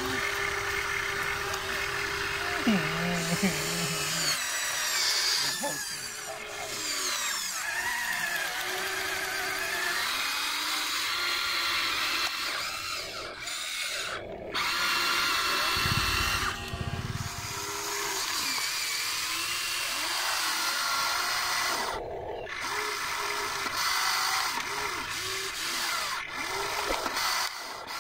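Huina radio-controlled excavator's electric motors whirring, the whine rising and falling in pitch as the boom, arm and bucket move through the mud.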